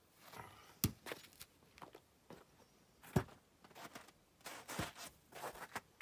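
Footsteps crunching over wood chips and bark, with two sharp knocks, one about a second in and a louder one about three seconds in, and rustling and scraping near the end.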